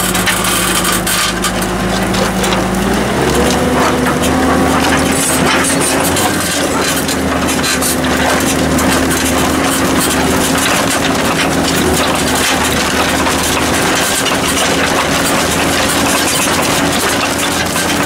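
New Holland TM175's six-cylinder diesel engine pulling a Kverneland plough under load, its tone rising about three seconds in as the revs pick up. Over it, loud steady scraping and rattling of the plough bodies cutting and turning the soil close by.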